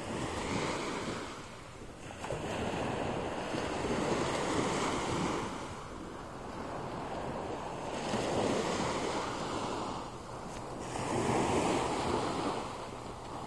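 Small waves breaking and washing up on a beach, swelling and fading about every three to four seconds, four times, over a steady low rumble of wind on the microphone.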